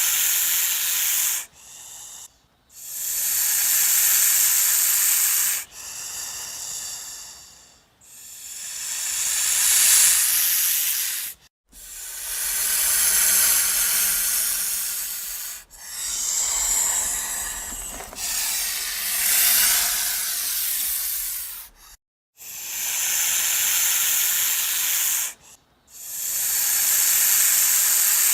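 A snake hissing repeatedly: a string of long, breathy hisses, each one to four seconds long, separated by short breaks.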